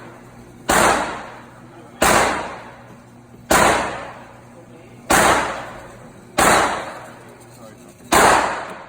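Six gunshots at a steady pace, about one every 1.4 seconds, each sharp crack followed by a ringing tail that dies away over about a second.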